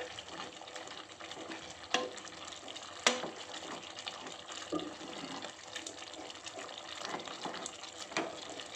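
Wooden mathu masher churning and mashing cooked green gram in an aluminium pressure cooker: steady wet stirring and sloshing, with sharp knocks of the masher against the pot about two and three seconds in.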